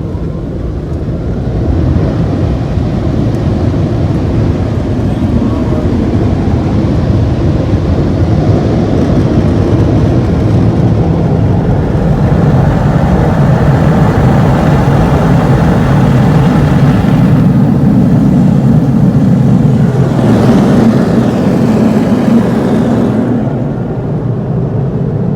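Automatic car wash dryer blowers blasting air over the car in the drying stage: a loud, steady rush of air that builds over the first couple of seconds and eases slightly near the end.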